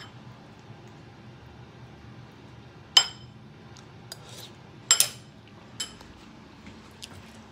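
Metal kitchenware clinking: a few sharp, ringing clinks, one about three seconds in, two close together about five seconds in, and a lighter one just after.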